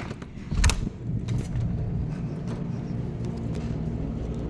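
A sharp thump less than a second in, then a car running steadily with a low rumble.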